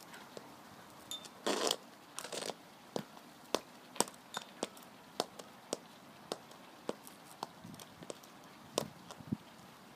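High-heeled lug-soled boots on concrete: a brief gritty scrape of the sole a second and a half in, then a run of sharp heel clicks about two a second.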